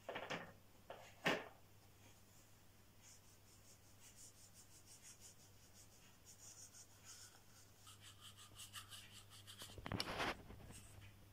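Paintbrush bristles scratching over a cardboard toilet-paper roll as it is painted, in faint rapid strokes. Two short knocks near the start, the louder about a second in, and a louder knock about ten seconds in.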